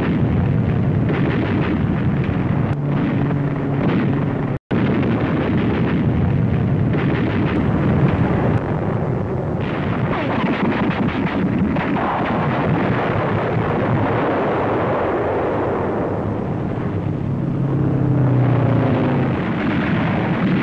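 Battle sounds: dense, continuous gunfire and explosions, dropping out for an instant about four and a half seconds in.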